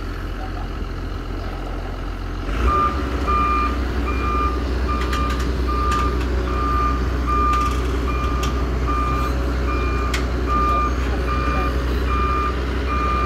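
Heavy-vehicle backup alarm beeping steadily, a single-pitched beep about three times every two seconds. It starts about two and a half seconds in, just as a diesel engine under it picks up.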